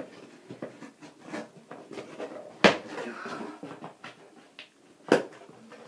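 Cardboard shipping box being opened by hand: scattered rustling and clicking of cardboard and packing, with two sharp knocks, one about two and a half seconds in and another near the end.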